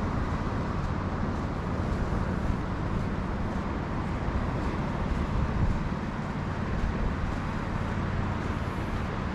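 Steady rushing outdoor background noise, heaviest at the low end, with no distinct events.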